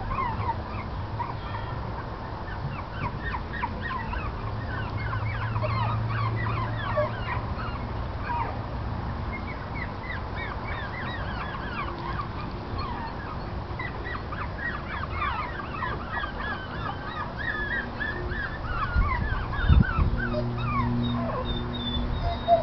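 Shih Tzu x Bichon puppies squeaking and yipping over and over in short, high, falling cries, over a low steady hum, with a couple of dull bumps near the end.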